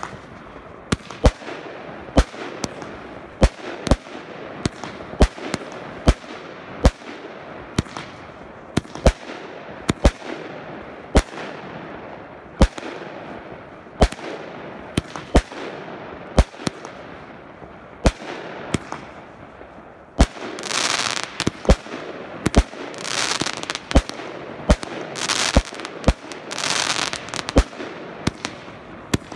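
Aerial fireworks going off in quick succession: sharp bangs about one to two a second. From about twenty seconds in, long spells of crackling come between the bangs.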